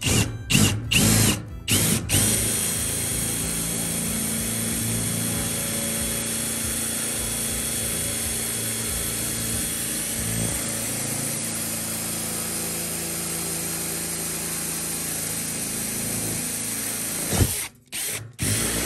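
Drill with a step drill bit boring through a metal wall stud to make the hole for a stud anchor. It starts with a few short bursts on the trigger, then runs steadily for about fifteen seconds, stops, and gives a couple more short bursts near the end.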